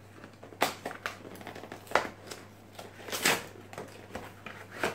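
A cardboard box being torn open by hand: several short ripping and crumpling sounds, a second or so apart.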